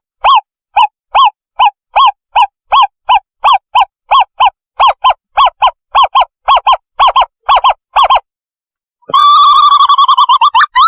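Recorded owl call played as a bird-trapping lure: a loud series of short hooting notes, about three a second and speeding up slightly, then a quick bubbling trill about nine seconds in.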